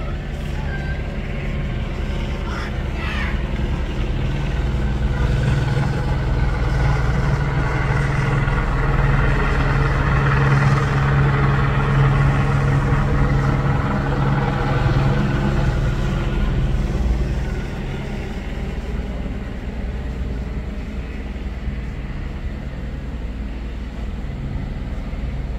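A motor vehicle's engine running steadily. It swells louder through the middle and drops back abruptly about two-thirds of the way through.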